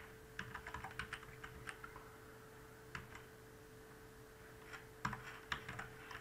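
Faint computer keyboard keystrokes as text is deleted and retyped: a flurry of key presses in the first two seconds, a single press about three seconds in, and another flurry near the end, over a faint steady hum.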